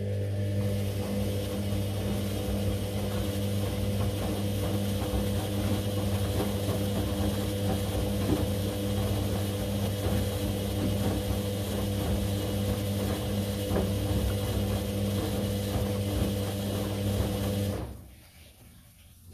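Candy CS1292D3 washing machine turning its drum during a rinse: a steady motor hum with water and laundry sloshing in the drum. It cuts off suddenly near the end as the drum stops before changing direction.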